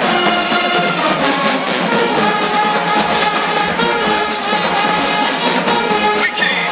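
HBCU marching band playing live: brass section, trumpets and trombones, with drumline percussion.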